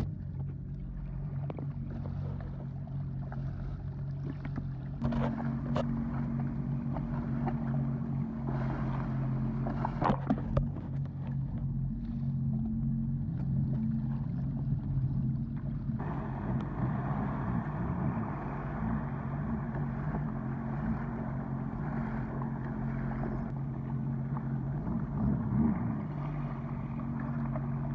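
Sea-Doo jet ski engine idling with a steady low hum, with a few brief knocks about a third of the way in.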